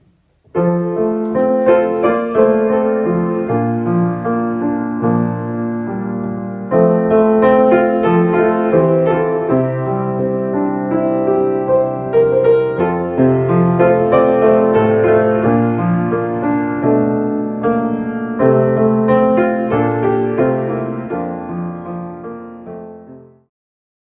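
Piano music playing held chords, starting about half a second in and fading out near the end.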